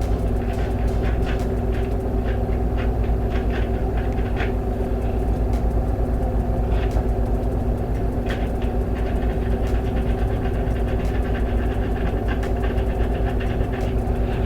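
A steady low machine hum throughout, with light intermittent scratching and clicking from fine sandpaper rubbing the burned contact terminals of a microwave door monitor switch clean.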